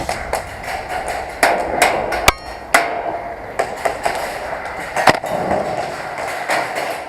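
Airsoft gunfire: about ten sharp cracks fired singly at irregular intervals of roughly half a second to a second, over a steady background hiss.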